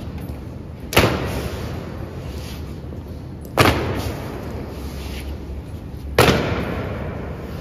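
Honour guards' boots stamping in a slow ceremonial march, one sharp stamp about every two and a half seconds, three in all. Each stamp echoes away slowly in a large reverberant hall.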